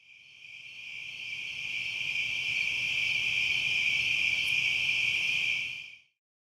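A steady chorus of crickets, fading in over the first couple of seconds and stopping about six seconds in.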